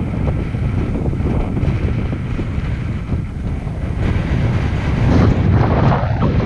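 Wind buffeting the helmet camera's microphone: a steady, loud, low rumble that grows a little stronger about four to five seconds in.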